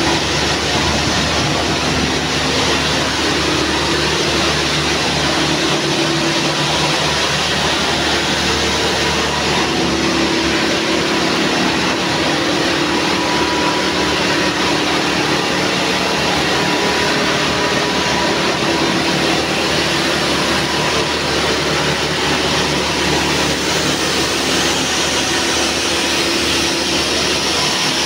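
A hall of nylon zipper coil forming machines running together: loud, steady machine noise with a faint steady whine.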